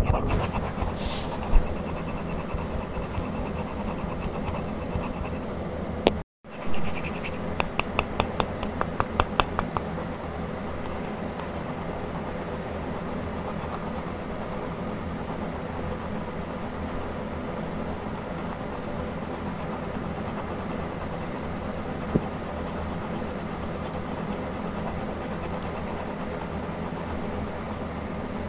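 Pencil and coloured pencil scratching and rubbing on paper while shading a drawing, over a steady low hum. Shortly after a brief dropout there is a run of quick, even strokes, about five a second, lasting a couple of seconds.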